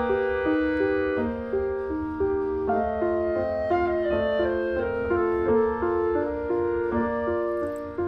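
Background piano music, a slow melody of held notes.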